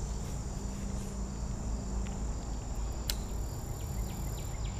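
Crickets chirring in a steady, continuous high trill, with one sharp click about three seconds in.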